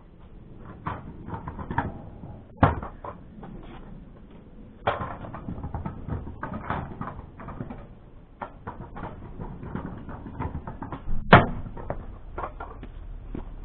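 Kick scooter rattling and clicking over paving slabs as it is ridden, with a steady run of small knocks and two sharp, loud knocks of the scooter on the pavement, about two and a half seconds in and again near the end.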